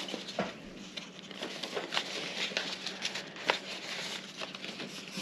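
Paper being folded and creased by hand: a scattered run of short, crisp crackles and taps.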